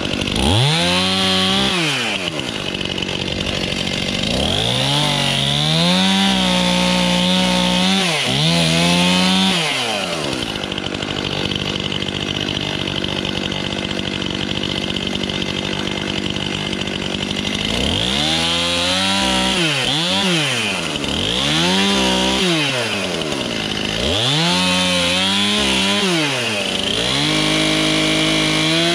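Stihl Farm Boss two-stroke chainsaw cutting firewood: the engine revs up and down several times, holds a steady high pitch for about eight seconds in the middle while sawing through wood, then revs up and down again and settles to a steadier, lower note near the end.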